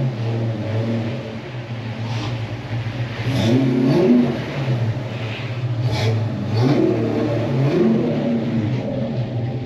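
Foxbody Mustang's 5.0 V8 running at idle, its revs rising and falling twice, about three and a half seconds in and again around seven seconds, with a few sharp clicks in between.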